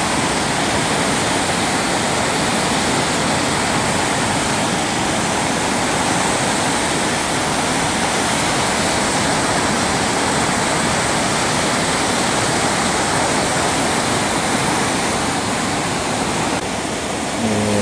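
Floodwater of the overflowing Kuma River rushing past in a steady, loud roar. The muddy torrent is carrying debris.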